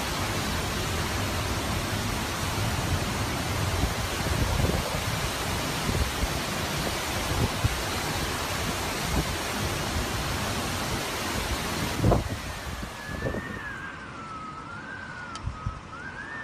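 Hurricane wind blowing hard, with gusts buffeting the microphone. About twelve seconds in it eases after a heavy gust, and a high wind whistle wavers up and down.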